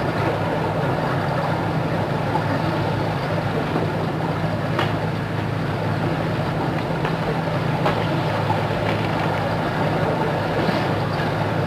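A steady low rumbling drone with a hiss over it, unchanging throughout, with a couple of faint clicks.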